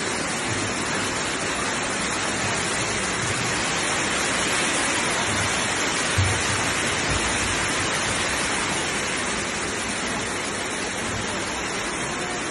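Steady rush of water, with a couple of brief low thuds about halfway through.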